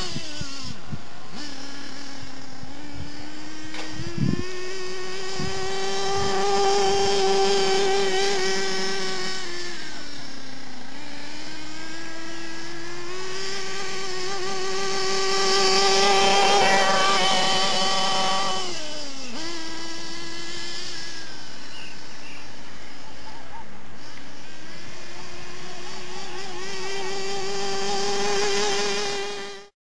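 OFNA Mutilator truggy's .32 nitro engine running during break-in, a high-pitched buzz that holds steady, then drops and climbs back about four times as the throttle eases and opens again. It cuts off abruptly at the very end.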